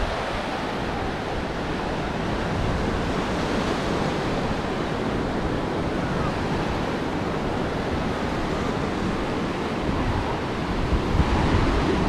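Ocean surf washing steadily onto the beach, with wind buffeting the microphone in low rumbles.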